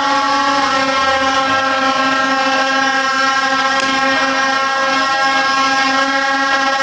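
Plastic stadium horns of the vuvuzela type blowing a continuous, steady, buzzing drone, with a short click about four seconds in.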